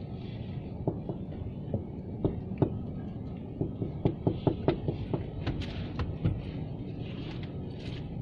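Handling noise: scattered clicks and light knocks over a steady low rumble.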